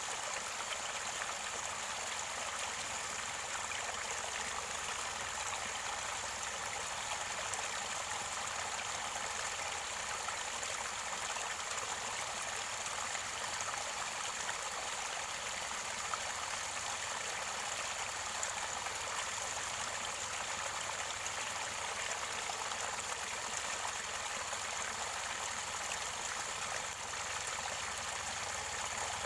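Mountain stream gurgling and running steadily near its spring source, with an even, unbroken rush of water.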